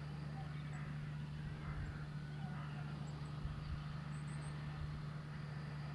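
Distant JCB Fastrac tractor engine running with a steady low drone as it tows a twin-axle slurry tanker that is spreading.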